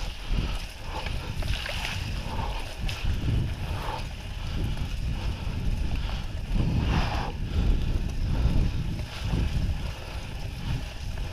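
Mountain bike riding over a rough, muddy dirt trail: a continuous uneven low rumble of wind buffeting the camera microphone mixed with tyre and rolling noise.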